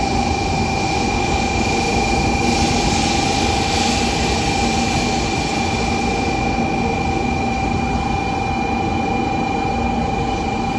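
Shinkansen train standing at the platform, its onboard equipment giving a steady hum with two constant tones over a rushing noise. A little extra hiss swells about two to four seconds in.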